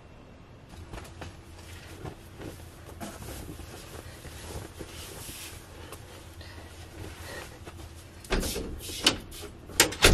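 Clothes and hangers rustling and shifting, with handling noise. Near the end come several loud knocks and clunks as the camera is handled.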